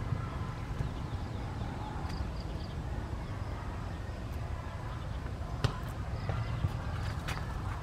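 Steady low outdoor background rumble, with a few short sharp clicks in the second half.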